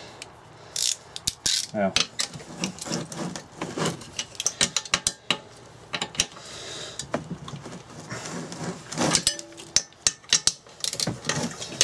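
Socket ratchet clicking in irregular runs as the cylinder head bolts of a Briggs & Stratton 2 hp engine are undone, with small metallic clinks of the socket on the bolts.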